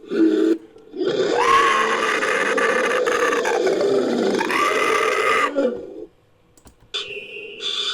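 Made-up creature call for a humanoid hawk, layered from a human voice and animal recordings. A short grunt comes first, then a long call of about four and a half seconds that rises and falls in pitch. After a pause of about a second comes a brief, high, steady tone near the end.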